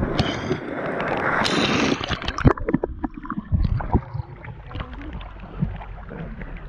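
Water splashing after a person's jump from a cliff into a lagoon: spray falling back onto the surface for the first couple of seconds, then water sloshing and splashing around a camera held at the waterline as the jumper swims up.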